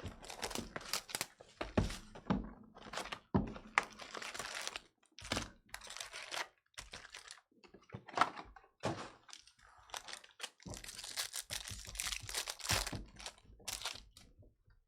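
Trading-card pack wrappers being torn open and crinkled, with several dull thunks of cards and packs handled on a table.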